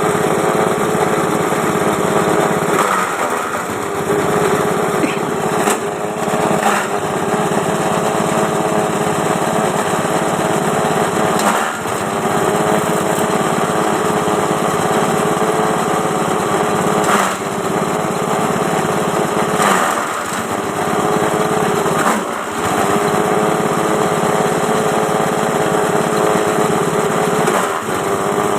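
Multi-purpose chopper machine's small engine running steadily. About eight times, at uneven intervals, its pitch dips for a moment and then recovers, as it does when the engine briefly bogs under load.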